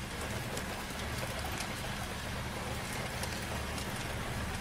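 Rain pattering steadily on a stationary car, heard from inside the cabin, with faint scattered drop ticks over a low steady hum.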